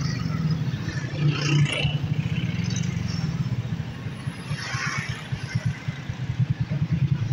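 Street traffic, with motorcycle engines running steadily and a fluttering low engine sound.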